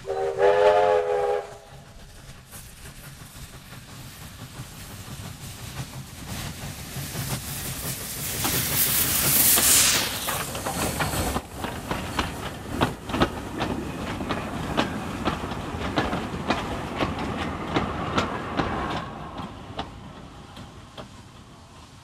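Victorian Railways K-class steam locomotive K153 gives one short whistle blast, then passes close by with a rising hiss of steam. The carriages follow with a run of rapid clicks over the rail joints, fading as the train moves away.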